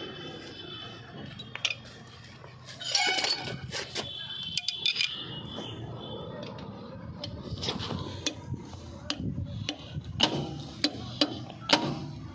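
Sharp metallic clicks and clinks as a long screwdriver is worked through a hole in a rear brake drum, metal knocking on metal. There is a brief ringing clatter about three seconds in, and the clicks come more often in the second half.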